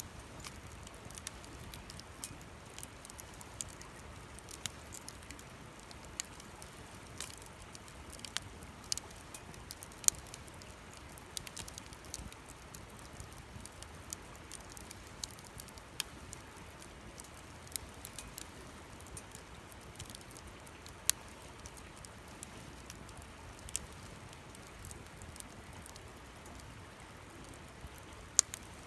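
Wood campfire burning, crackling with irregular sharp pops over a low steady hiss, with a couple of louder pops about a third and two thirds of the way through.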